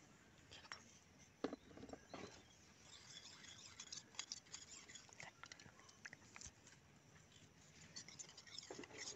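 A small metal spoon scratching and clinking faintly in a miniature steel bowl as dry ragi flour is stirred, in scattered light scrapes and ticks.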